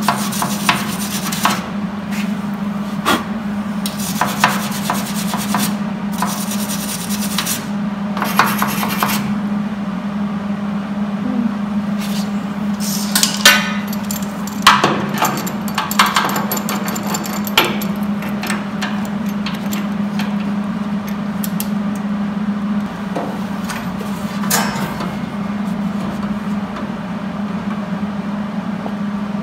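Hand scraping and rubbing on the steel flange of a 1967 Mustang shock tower, stripping weld-through primer from the spots to be welded, with scattered sharp clicks and knocks of tools on metal. A steady low hum runs underneath.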